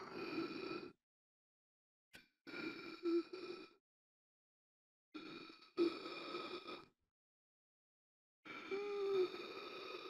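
A person gasping for air in laboured breaths, four in all, each about a second long with a brief catch of voice in the throat, coming roughly every three seconds with dead silence between them.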